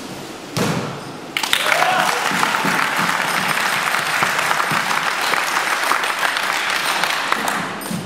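An audience applauding steadily for about six seconds, starting about a second and a half in and fading near the end. A brief loud sound comes just before it.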